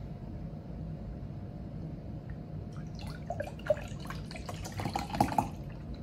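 Milk poured from a carton into a tall glass tumbler, the liquid splashing into the glass; it starts about three seconds in and stops shortly before the end.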